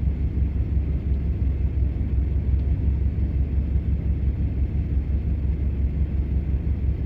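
Car engine and road noise heard from inside the cabin while driving: a steady, low, fluttering rumble with no revving up or down.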